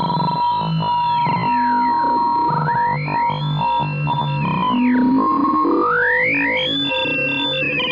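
Synthesized sci-fi UFO communication effect: electronic blips and rising and falling pitch sweeps over a steady held tone.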